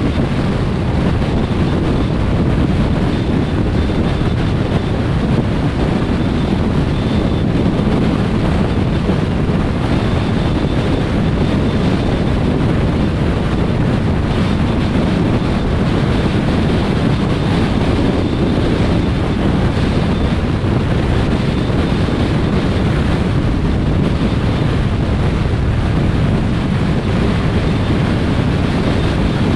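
Steady road and wind noise from a car travelling at motorway speed, a low rushing sound that does not change.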